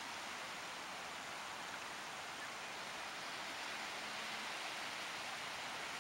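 A steady, even hiss with no rise and fall.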